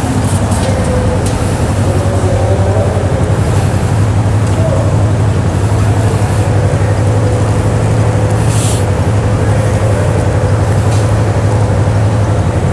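Yamaha MT-03 motorcycle engine idling steadily, close by. A brief hiss about two thirds of the way through.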